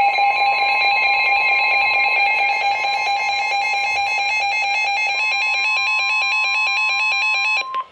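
Emergency Alert System attention tone on a NOAA Weather Radio broadcast: a loud, steady electronic tone near 1 kHz with a fast-pulsing warble over it, cutting off just before the end. It signals that a new warning message follows, here a severe thunderstorm warning.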